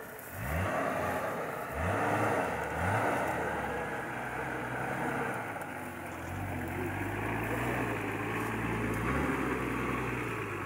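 An off-road 4x4's engine revs up in several quick bursts as it climbs a grassy slope, then runs steadily at low revs with one more short rev near the end.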